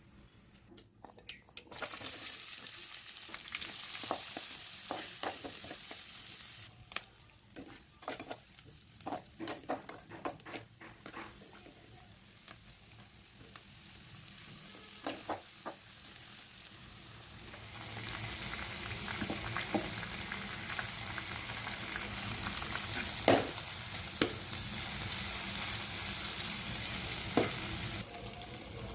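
Food sizzling as it fries in hot oil in a pan, heard in spells with abrupt cuts. In the middle comes a run of clicks and knocks of a utensil stirring in the pan, and a few sharp knocks fall near the end.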